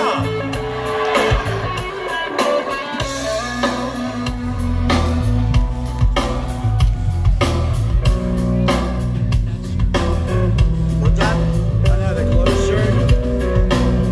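Live rock band playing: electric guitars over bass and drum kit. The bass and drums are sparse at first, then the full band comes in about three seconds in with a steady drum beat.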